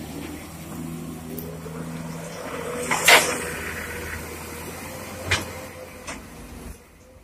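Komatsu PC200 hydraulic excavator working: its diesel engine drones steadily, rising in pitch over the first few seconds as the machine swings. A loud clank about three seconds in as the steel bucket strikes the gravel, then two lighter clanks.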